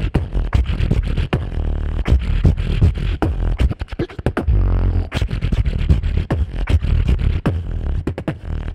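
Solo beatboxing into a handheld microphone: a dense rhythm of sharp drum-like hits and clicks over a continuous deep bass line.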